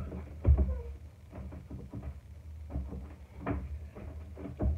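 Scattered dull thumps and knocks, roughly one a second, the loudest about half a second in, from someone moving about a small room.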